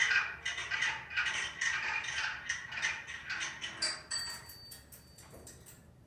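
Manual typewriter typing: a run of key strokes clacking two or three times a second, with a single high ring about four seconds in, after which the strokes grow fainter.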